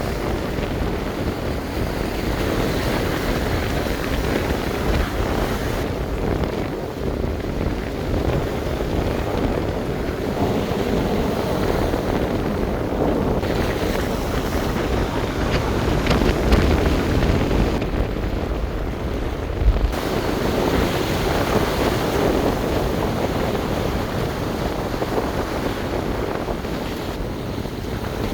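Surf breaking and rushing in under strong gale-force wind, the wind buffeting the microphone with heavy low rumbling. The sound changes character abruptly a few times.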